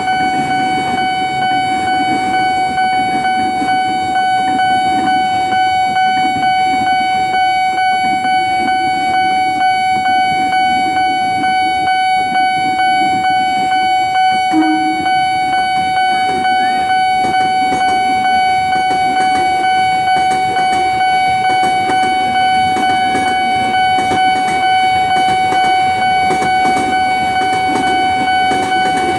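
Railway level-crossing warning alarm sounding a very loud, steady, unbroken high tone.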